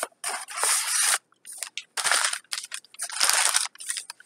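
Cardboard shipping box being torn open by hand, with three main rough ripping, scraping bursts and shorter crackles between them.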